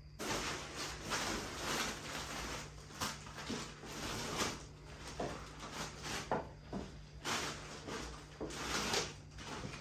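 Plastic shopping bags rustling and groceries being handled and set down, a dense run of rustles and light knocks.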